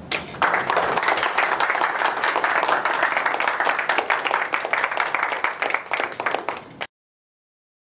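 Applause from a small roomful of people, a dense patter of hand claps that cuts off abruptly about seven seconds in.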